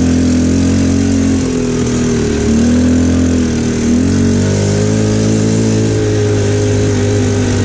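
Linhai 300cc 2x4 ATV engine running steadily as the quad rides along a dirt track, its pitch rising and falling a little with the throttle.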